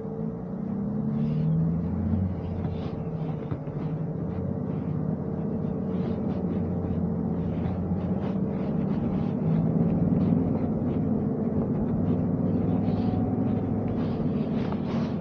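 2023 Toyota Sequoia TRD Pro's twin-turbo V6 hybrid powertrain pulling away at crawling pace on an off-road track. The engine note rises over the first two seconds, then runs steadily under light throttle, with a steady whine alongside.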